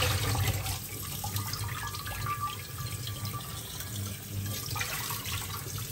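Kitchen tap running cold water over a whole parboiled chicken into a stainless steel sink, splashing off the bird and a plate below as it is rinsed inside and out. The water stops right at the end.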